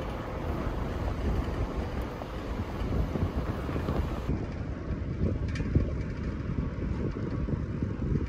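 Wind buffeting the microphone on a moving electric bike at about 25 km/h: a steady low rushing rumble.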